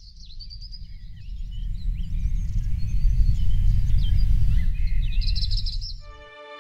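Birds chirping and trilling over a low rumbling noise that swells through the middle and fades out near the end. Music starts just as the rumble dies away.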